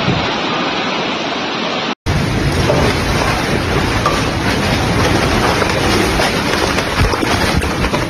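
Storm wind and driving rain: a loud, steady rushing noise buffeting the microphone. It breaks off for an instant about two seconds in, then carries on.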